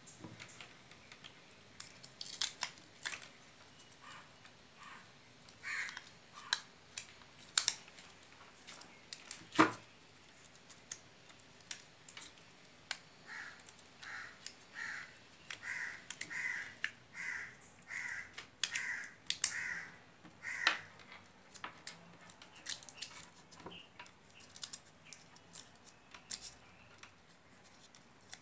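Hand-work noise at a workbench: scattered sharp clicks, rustles and snips as tape and scissors are worked around a toroidal transformer's lead wires. Around the middle comes a run of about a dozen short, evenly spaced calls, roughly three every two seconds.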